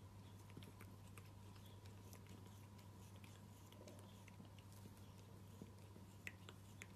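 Near silence with a steady low hum, over which come faint, soft clicks of a long-haired cat licking and grooming its paw, a couple of them a little louder near the end.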